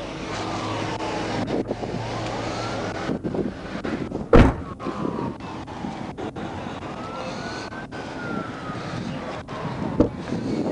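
Police siren wailing, its pitch slowly rising and falling, over the noise of highway traffic passing. A sharp thud about four seconds in is the loudest sound, with a smaller knock near the end.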